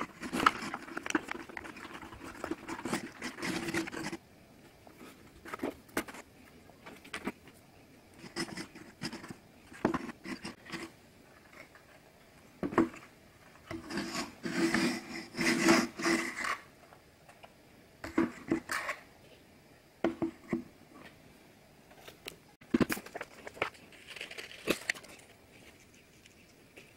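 Hands fitting and handling the stiff printed board pieces of a 3D puzzle model house on a tabletop: scraping, rubbing and clicking in a few short bursts, with scattered light taps between them.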